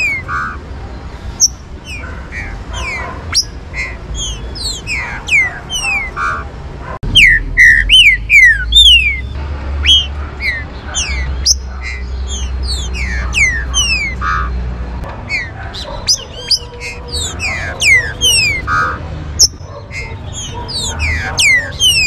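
Green-winged saltators (trinca-ferro) calling, a dense run of quick, falling whistled notes that overlap one another. A low rumble runs under the calls through the middle of the stretch, which is also the loudest part.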